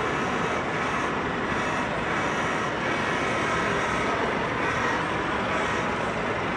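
Steady background din of a large, busy exhibition hall: an even rumble and hiss with no single sound standing out.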